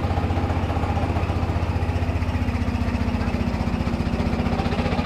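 A small engine idling steadily, with a low hum and a fast, even pulse that does not change.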